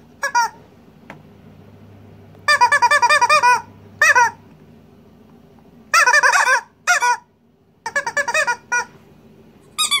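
Latex squeaky toys squeezed in quick runs of high squeaks, several squeaks a second. The runs come in about six bursts with short pauses between them.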